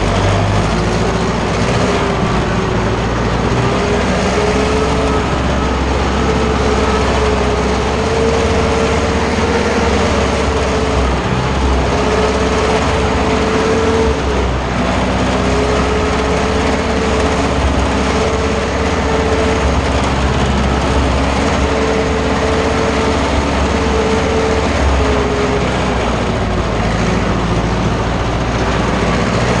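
Ursus tractor's diesel engine running steadily as the tractor drives along, heard from the driver's seat, with a whine that comes and goes over the engine noise.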